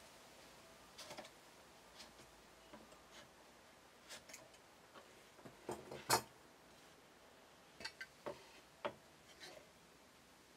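Faint, scattered clicks and taps of a marking knife and a sliding bevel handled against a pine board on a wooden workbench, with the sharpest tap about six seconds in.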